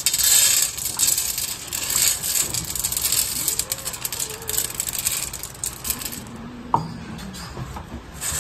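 Dry cat kibble poured from a plastic scoop onto a large metal tray: a dense rattle of pellets hitting and skittering on the metal, which thins out and stops about six seconds in. A single sharp click follows near the end.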